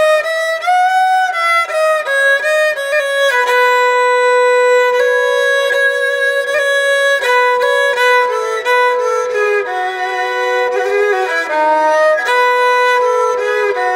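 Nepali sarangi, a bowed folk fiddle, playing a solo melody of held notes with slides between them.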